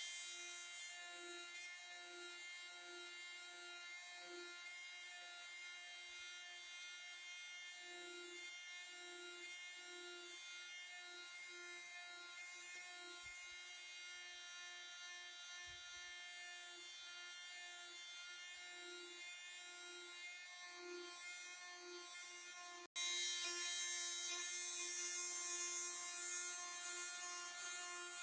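Small electric power sander running with a steady hum while its pad rubs over a wooden model ship hull. It gets suddenly louder near the end.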